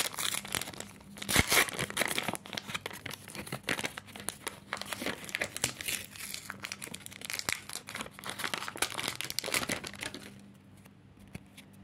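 Shiny wrapper of a Panini FIFA 365 football card pack crinkling and tearing as it is opened by hand: dense, rapid rustling that stops about ten seconds in.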